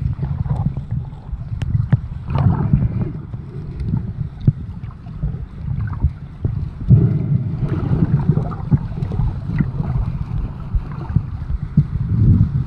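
Muffled underwater sound through a submerged camera housing: a low, uneven rumble of moving water with scattered small clicks and knocks.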